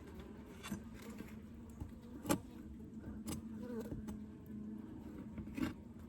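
Honeybees buzzing steadily around an open hive frame, a low hum that wavers slightly in pitch. A few sharp clicks cut through it, the loudest a little over two seconds in.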